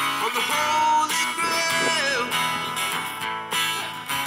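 Guitar music, plucked and strummed, with a few notes sliding in pitch.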